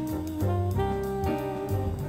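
Jazz background music: a held, stepping horn melody over drum kit cymbal ticks.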